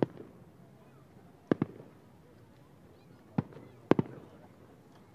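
Fireworks shells bursting about a kilometre away: sharp separate bangs, each with a short echo. One comes at the start, a quick pair about a second and a half in, one at about three and a half seconds, and another quick pair near four seconds.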